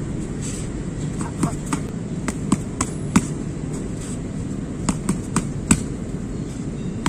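Boxing gloves smacking into handheld focus mitts in quick combinations of three to five punches, with short gaps between the runs, over a steady low background hum.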